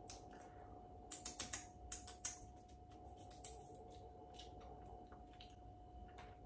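Plastic sweet packet crinkling as it is handled: a quick run of sharp crackles from about one to two and a half seconds in, then a few scattered ticks.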